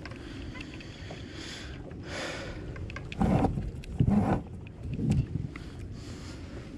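Fishing gear handled on a plastic sit-on-top kayak: a few short dull knocks and rustles, the loudest about three seconds in, over steady wind and water noise.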